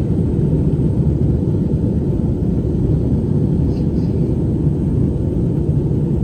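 Steady low rumble of an Airbus A320-200 in flight, engine and airflow noise heard inside the passenger cabin.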